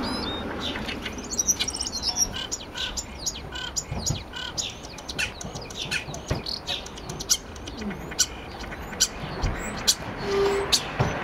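Common starling calling and singing: a busy run of short clicks, chirps and brief whistles.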